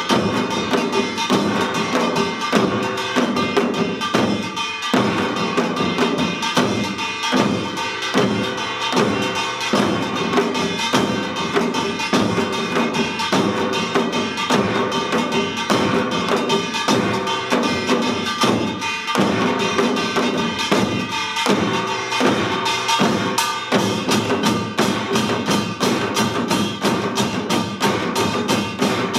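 Samul nori ensemble playing Yeongnam rhythms: many janggu hourglass drums and buk barrel drums struck in fast, dense patterns, with the metallic ringing of kkwaenggwari and jing gongs over them.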